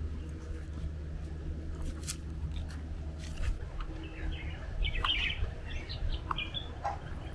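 Birds chirping, a quick cluster of short chirps in the second half, over a steady low rumble. A few sharp crunching clicks come in the first half.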